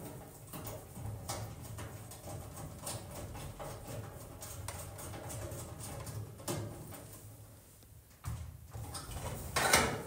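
Screwdriver driving the flame sensor's small mounting screw into the sheet-metal burner bracket of a gas clothes dryer: faint scratchy scrapes and light clicks, with a few sharper clicks toward the end.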